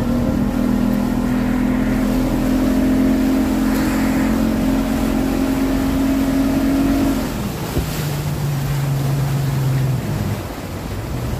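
Boat engine running steadily under way with a slowly rising hum, then throttled back about seven seconds in so its pitch drops to a lower, quieter drone. Water and wind rush underneath.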